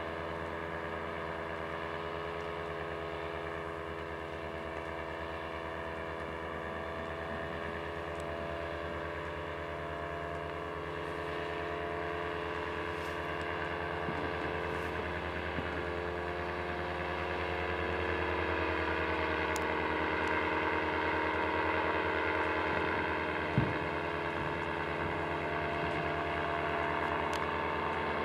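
Paramotor engine and propeller droning steadily overhead, with a slight drift in pitch, growing louder over the second half. A single brief knock about three-quarters of the way through.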